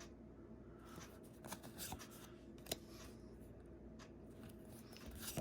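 Magic: The Gathering trading cards being handled and flipped one by one, making faint papery flicks and light clicks, with one sharper snap about 2.7 s in.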